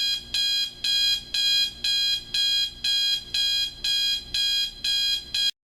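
Advance electric alarm clock's alarm sounding: a loud, buzzy electronic beep repeating about twice a second, each beep nearly half a second long. It cuts off suddenly near the end.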